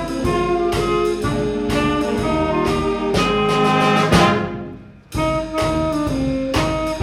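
A high school ensemble of brass and drums playing a jazz-style number, with trumpets, trombones and saxophone over a steady drum beat. About four seconds in the band holds a chord that dies away into a short break, then comes back in together.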